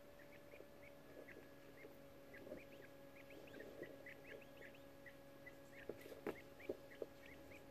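Young coturnix quail chicks cheeping softly: a steady run of short high peeps, several a second, some sweeping upward, over a faint steady hum. A few soft taps near the end.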